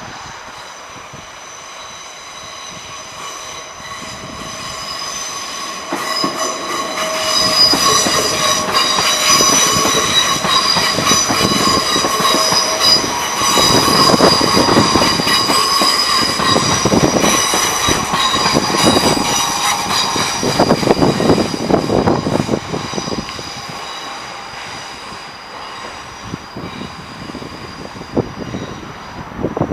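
Train passing over the crossing, its wheels squealing with a steady high whine and rattling over the rails. It builds over the first few seconds, is loudest through the middle and fades toward the end.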